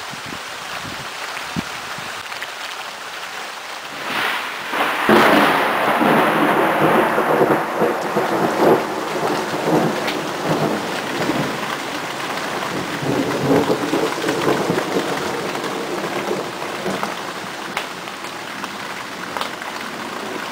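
Steady rain, then about four seconds in a very loud clap of thunder that rumbles on for several seconds and fades out gradually, with the rain still falling.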